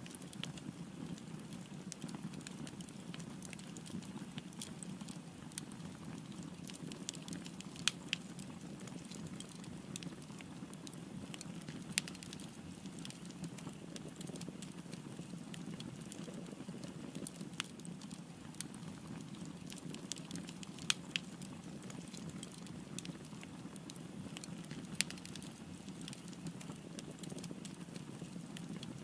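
Wood fire burning with a steady low rumble and frequent crackles and sharp pops scattered irregularly throughout.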